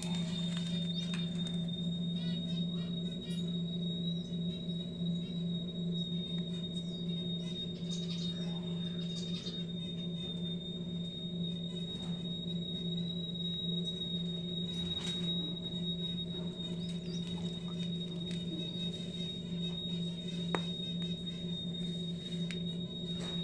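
A steady low hum with a constant high-pitched whine over it, unchanging throughout, with a few faint clicks.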